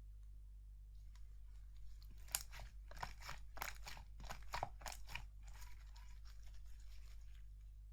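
Slime being worked by hand, giving a quick run of crackling, crunching pops about two seconds in that fades to fainter crackles.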